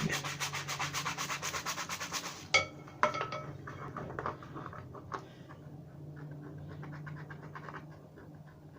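Scrubbing brush scrubbing glue residue off a hard plastic toy part in quick, even strokes. It breaks off about two and a half seconds in with two sharp knocks, then goes on as quieter, scattered scratching.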